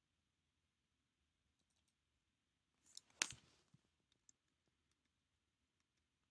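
Two quick clicks of a computer mouse button about three seconds in, a double click selecting an item on screen, against near silence.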